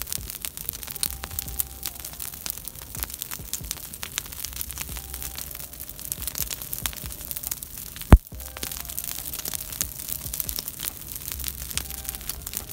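Open fire of dry straw and stalks crackling with many small snaps, and one loud sharp pop about eight seconds in.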